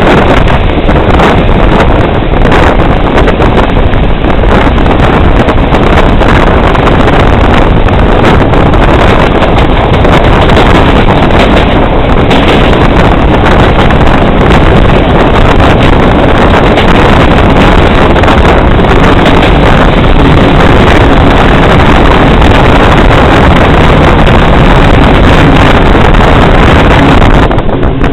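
Running noise of a moving passenger train heard at an open carriage window, with wind rushing and buffeting the microphone. The noise is loud, steady and unbroken.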